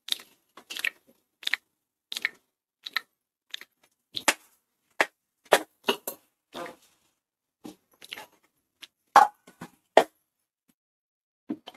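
Roasted sesame and peanut mixture being tipped from a steel plate into a steel pan and then stirred with a metal spoon: a run of short, separate scrapes and clinks, about two a second, loudest near the end.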